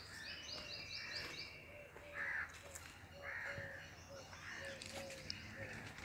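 Several birds calling and singing at once: a quick run of high, falling notes near the start, a low note repeated about three times a second, and harsh calls, loudest a little past two seconds in.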